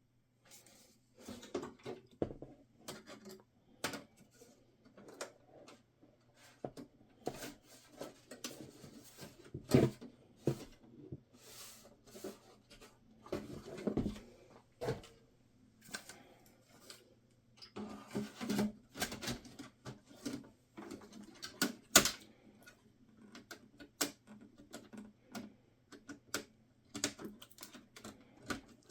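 Irregular clicks, taps and knocks of hands handling the parts and case of an HP EliteDesk 805 G6 small-form-factor desktop PC, over a faint steady low hum. The sharpest click comes about 22 seconds in.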